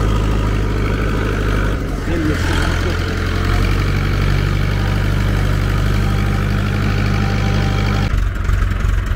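A vehicle engine running steadily while driving slowly over a rough dirt track. Its note shifts about two seconds in and turns rougher near the end.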